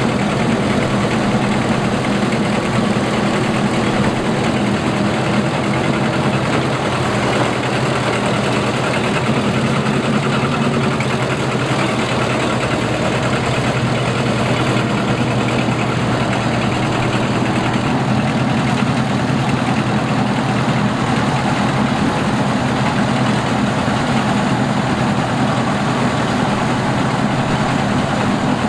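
Combine harvester running steadily at constant engine speed, a continuous mechanical drone with no change.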